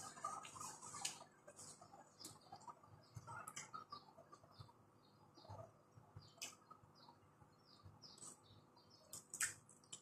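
Close-up eating sounds of someone eating fried chicken by hand: soft, irregular mouth clicks, smacks and finger-licking. A tissue rubs at the nose in the first second, and one sharper click comes near the end.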